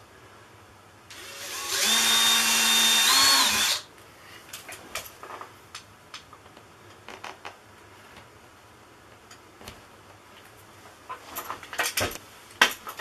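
Power drill with a small bit boring a starter hole for a wall anchor, running steadily for about two and a half seconds with a slight rise in pitch just before it stops. Light scattered clicks and taps follow, a few closer together near the end.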